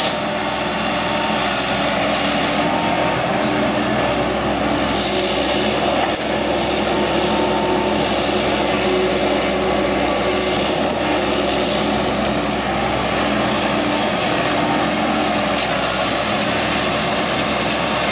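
Heavy diesel engine running steadily, an even drone with no breaks.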